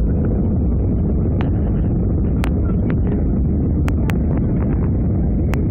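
Muffled, steady low rumble of an Airbus A319's cabin in descent, heard through a covered microphone, so the higher sounds are cut away. Several sharp clicks come through it.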